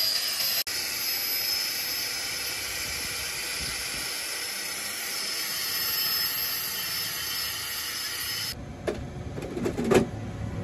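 Angle grinder with a knotted wire cup brush scouring a steel knife blade: a harsh steady hiss with a high whine. It cuts off about three-quarters of the way through, followed by a few knocks, the loudest near the end.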